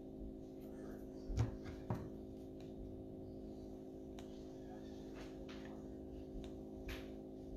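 A few light taps and clicks from handling a phone or tablet, over a steady low hum.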